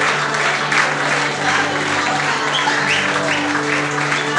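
Restaurant diners applauding over loud music with steady held notes.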